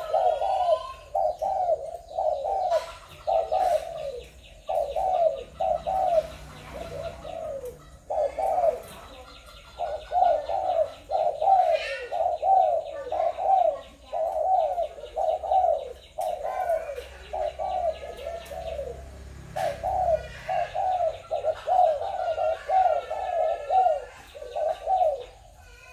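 Spotted doves cooing over and over, a near-continuous run of low, rolling coos with a few short breaks. Fainter high chirps from small birds sound behind them.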